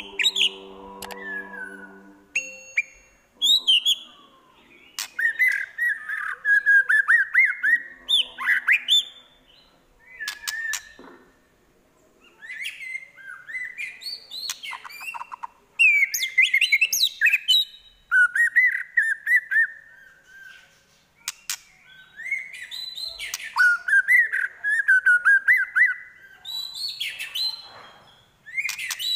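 White-rumped shama singing a varied, mimicry-laden song of rapid trills, clear whistles and sharp chattering notes, in bursts of phrases broken by short pauses.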